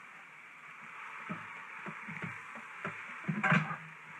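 Chicken going into the hot steel inner pot of an Instant Pot on sauté and sizzling, with a spatula knocking and scraping against the pot. The loudest burst comes about three and a half seconds in.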